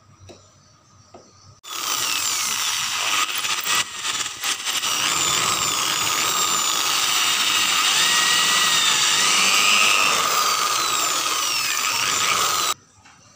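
Electric hand drill running, starting about a second and a half in and stopping sharply about a second before the end, its motor whine gliding up and down as the speed changes. It is drilling a hole through a small plastic part.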